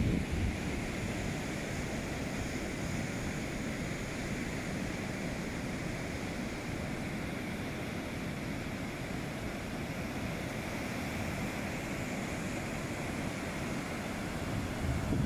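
Surf breaking on a sandy beach: a steady wash of waves, with wind rumbling on the microphone that gusts louder briefly at the start and near the end.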